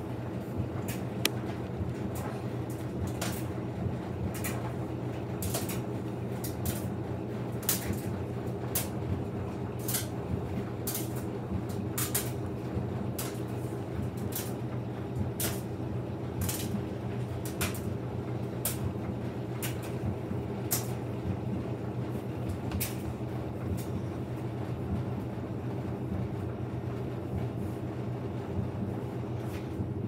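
Front-loading washing machine running its drum-cleaning cycle, the drum turning in reverse through soapy water: a steady motor hum with water sloshing and frequent irregular sharp clicks.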